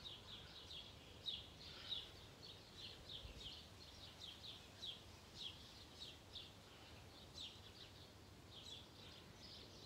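Faint birdsong: many short, high chirps, several a second, over a quiet background hiss.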